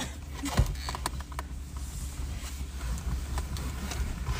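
Steady low rumble of a car interior with the engine running, overlaid by rustling and a thump about half a second in, then a few lighter knocks, as someone clambers between the front seats toward the back.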